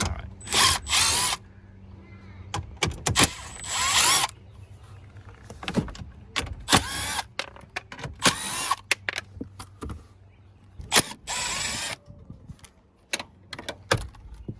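Small power driver with a 7 mm socket spinning out dashboard bolts in several short whirring bursts of about half a second to a second each, with clicks of the tool and bolts between them.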